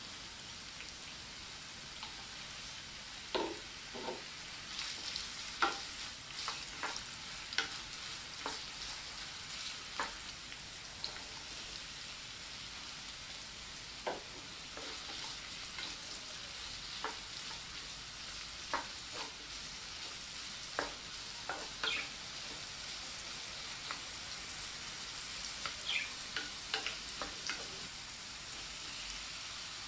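Diced potato, carrot and mushroom frying in a nonstick pan: a steady sizzle, with scattered clicks and scrapes as a wooden spoon stirs the vegetables.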